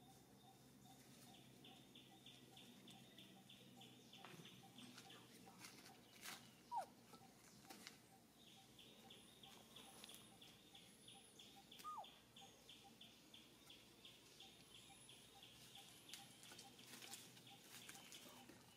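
Faint outdoor ambience: a high, rapid pulsing call, about five pulses a second, runs in two long stretches. Two short falling chirps stand out twice, the loudest sounds in it.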